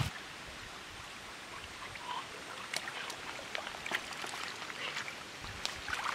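Shallow stream water running over pebbles and around a plastic-bottle fish trap: a steady trickle with scattered small splashes and ticks.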